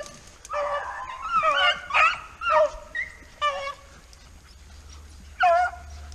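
Rabbit-hunting dogs yelping and baying: a quick run of short, high cries over the first four seconds, then one more cry near the end.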